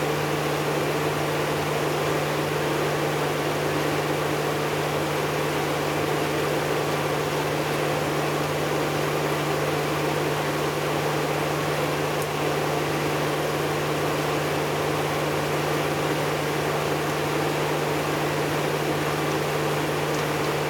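Panasonic NA-W77FCW1 twin-tub washing machine's spin tub running steadily while rinsing with tap water flowing in: a steady low motor hum under the rush of water. The spin basket sprays water out through its holes.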